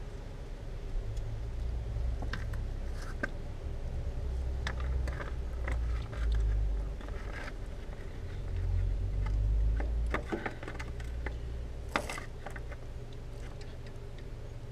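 Screwdriver and hand work on a motorcycle chain guard as it is fitted back on: scattered small clicks, taps and scrapes of metal and plastic, with one sharper knock near the end. Under it runs an uneven low rumble that swells twice.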